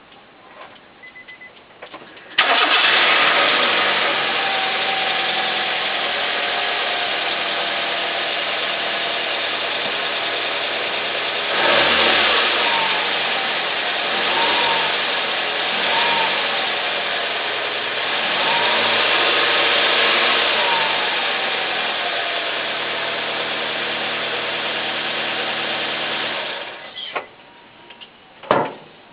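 Nissan Sunny car engine started about two seconds in and idling, blipped up in revs a few times in the middle, then switched off, followed by a single thump near the end. It is being run to check for an abnormal noise; the creaking squeal the owner says it usually makes does not stand out here.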